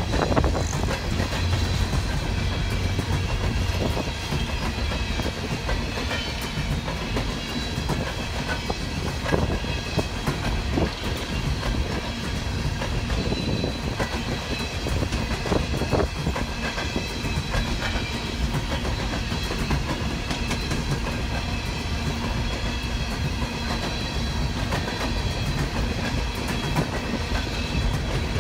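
Freight train of open-top coal cars rolling past: a steady rumble of steel wheels on rail, with wheels clicking over rail joints now and then.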